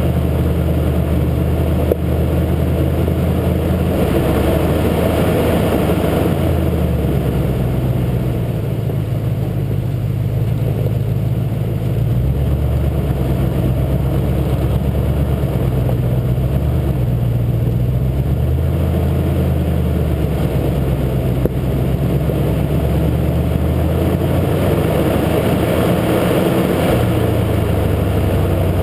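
Truck engine running at low revs on a steep downhill, its pitch stepping up and down, with tyres crunching over loose gravel and rock. Heard from a camera mounted on the front of the truck.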